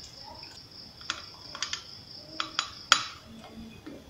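Metal ladle clinking against a metal cooking pot while hot bandrek is scooped out, with several sharp clinks, the loudest about three seconds in.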